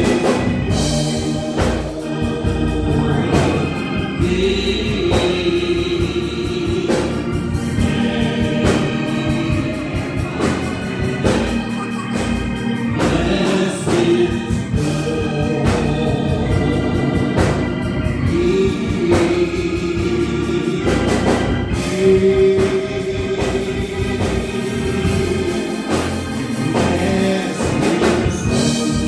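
Gospel music: a choir singing with organ accompaniment.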